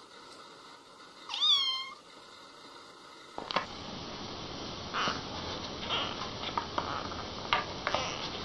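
A kitten's single high meow, rising then falling, about a second and a half in. From the middle on comes a steady rustling with small scuffs and clicks as the kittens wrestle on a blanket.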